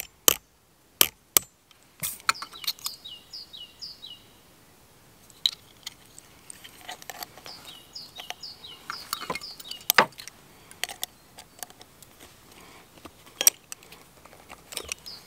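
Sharp taps of a hammer on copper being cold-worked into jewelry: a quick cluster in the first two seconds, then scattered knocks, one loud one about ten seconds in. A songbird sings through it in repeated phrases of short falling chirps.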